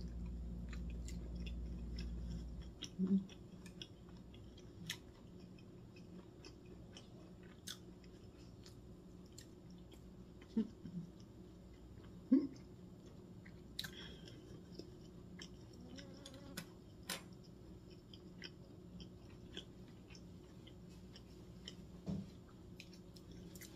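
Quiet close-up mouth sounds of a person chewing a slice of pyeonyuk (pressed boiled pork), with scattered small clicks and smacks. A low hum stops about three seconds in.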